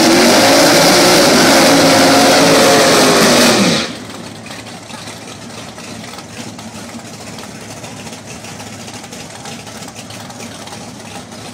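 Drag race car engine running hard at high revs, its pitch rising a little and then falling. It cuts off abruptly about four seconds in, leaving a much quieter steady background noise.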